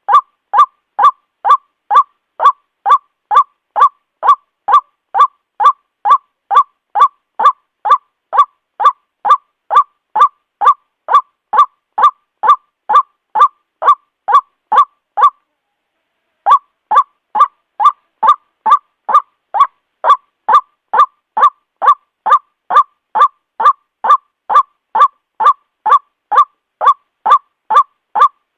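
White-breasted waterhen (ruak-ruak) calling over and over, a loud, even run of about two to three harsh notes a second. The calls break off for about a second midway, then start again.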